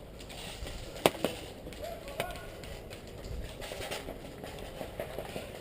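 Faint distant voices with two sharp clicks about a second in and a few fainter ones later.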